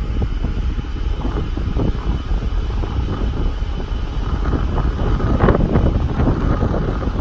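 Wind buffeting the microphone: a loud, steady low rumble with irregular gusts.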